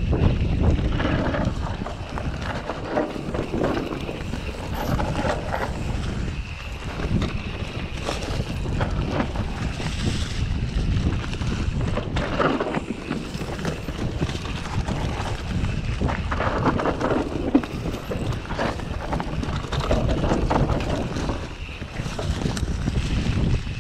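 Specialized Enduro Expert EVO mountain bike descending a dirt trail at speed: wind buffeting the microphone over the rumble of tyres on dirt, with frequent rattles and knocks as the bike goes over bumps.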